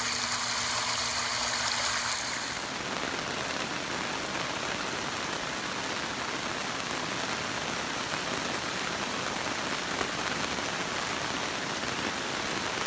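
Heavy rain falling steadily, an even hiss of water hitting the ground, with a slight change in its sound about two seconds in.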